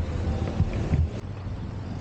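Wind buffeting the microphone, with a few heavy low gusts in the first second, over a steady haze of street noise.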